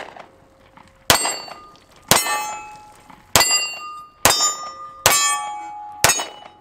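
Six shots from a Sig Sauer P320 XCompact 9mm pistol, about one a second, each followed by the ringing clang of a steel plate target being hit.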